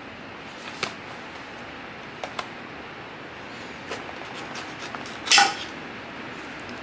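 Small ABS/PVC toy figurines being handled and set down on a marble tabletop: a few light plastic clicks, then a louder clatter a little after five seconds in as one figure tips over onto the table.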